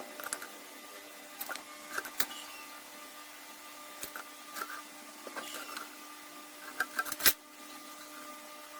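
Scattered light knocks and clicks of workpieces and tools being handled on a workbench, over a faint steady hum.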